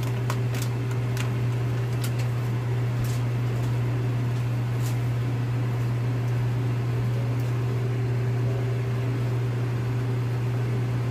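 Steady low hum of a kitchen appliance's fan motor, with a few short crinkles of a plastic noodle bag in the first five seconds.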